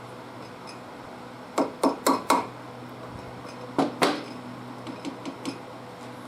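Metal engine parts and tools clinking and knocking together during engine disassembly: four sharp clanks in quick succession about a second and a half in, two more near four seconds, then a few lighter taps.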